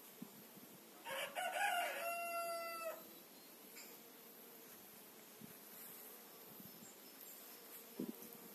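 A rooster crowing once, a rough start about a second in and then a long held note that ends about three seconds in.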